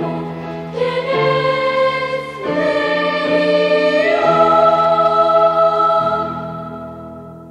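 Choir singing the final phrase of a Turkish school march, ending on a long held chord that fades out near the end.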